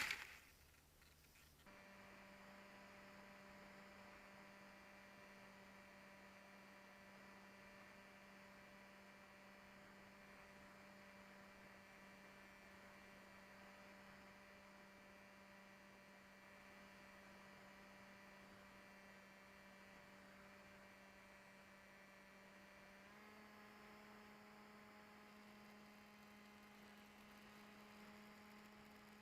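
Faint, steady electrical hum, one low tone with its overtones, stepping up slightly in pitch about three-quarters of the way through.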